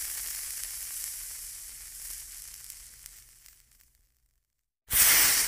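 Intro sound effect: a hiss that fades away over about four seconds, then after a short silence a sudden loud burst of hiss near the end.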